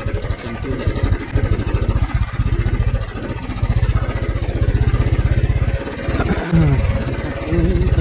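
Royal Enfield Thunderbird 350's single-cylinder engine running under way on a rough dirt trail, a fast, even low pulsing of exhaust beats that briefly eases off about six seconds in.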